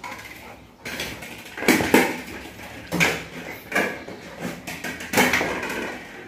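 A puppy's plastic ball knocking and bouncing on a tiled floor as the puppy noses it along, several separate knocks ringing in a bare room, loudest about two seconds in.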